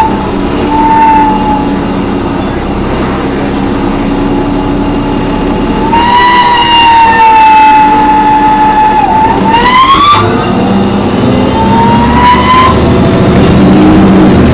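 A high-pitched screech from a New Flyer D40LF transit bus, which the uploader traces to the brakes or the transmission, over the bus's running and road noise. It comes as several squeals: a short one at the start, a long one of about three seconds in the middle, then two that rise in pitch.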